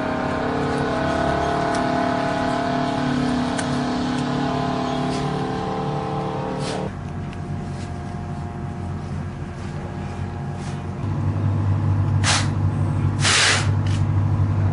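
A heavy vehicle's engine runs steadily, changing its note about halfway through and growing louder near the end. Two loud, sharp bangs come close together near the end.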